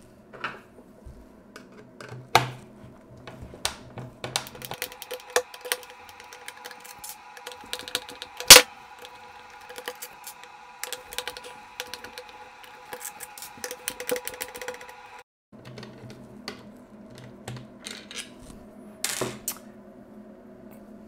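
A Phillips screwdriver backing screws out of the Bose HomeSpeaker 300's plastic inner housing: a run of small irregular clicks and ticks from the bit and the plastic parts being handled, with one much louder sharp click about eight and a half seconds in.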